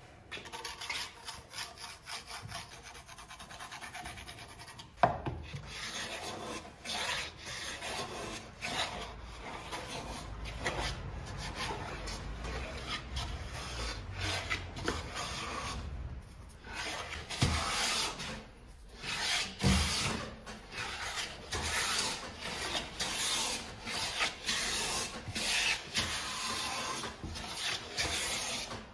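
Hand plane shaving the face of a wooden cutting board in repeated quick push strokes, the blade hissing and rasping through the wood with short pauses between passes. A single sharp knock about five seconds in, before the strokes start.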